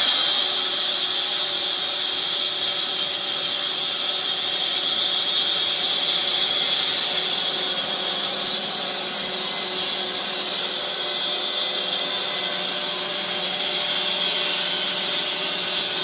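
Puma EA bandsaw mill running, its band blade cutting through a log with a steady, hissing saw noise.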